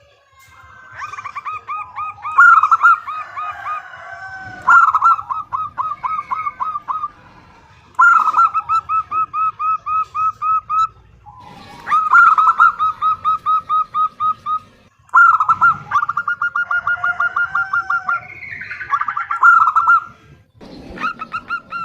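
Female zebra dove (perkutut) calling to a male: repeated trains of quick, clipped notes, about four a second, each train lasting two to three seconds with short pauses between.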